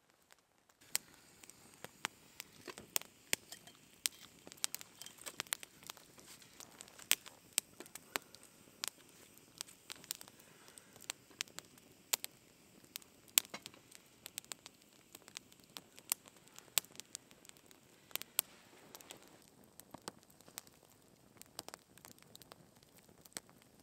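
Wood campfire crackling, with irregular sharp pops and snaps over a faint hiss, starting about a second in.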